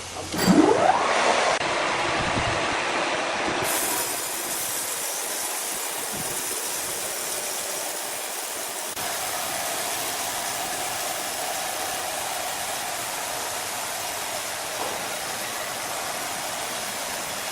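Power saw revving up sharply about half a second in, then running steadily through wood with a continuous loud cutting noise.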